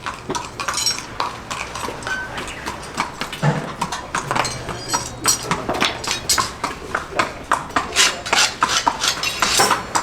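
Irregular sharp clicks, knocks and light metallic clinks of a racehorse's hoof being worked on by a farrier, over a faint steady low hum.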